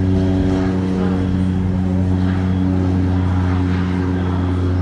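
Cessna Grand Caravan single-engine turboprop rolling on the runway, its propeller giving a loud, steady drone: a low hum with a row of overtones, the pitch holding level.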